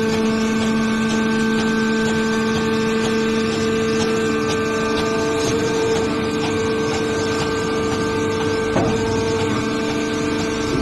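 A hydraulic baler running: a steady hum and whine from its motor and hydraulic pump. The tone of the whine changes about halfway through, and there is a single knock about nine seconds in.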